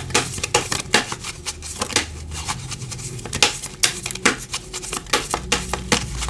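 Tarot cards being shuffled and handled, a dense run of irregular sharp clicks and slaps, several a second.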